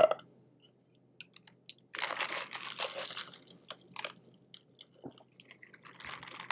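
Soda being sipped through a straw from a large plastic fountain-drink cup: crackly sipping noise about two seconds in and again near the end, with small clicks between.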